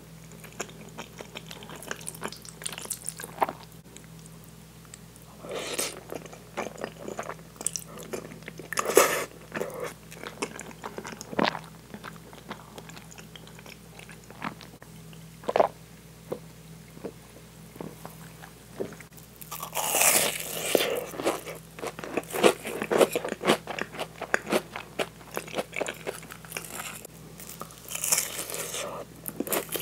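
Close-miked chewing of spaghetti in meat sauce, with scattered sharp clicks. Near the end comes a crunching bite into the fried breadcrumb crust of a crab cream croquette.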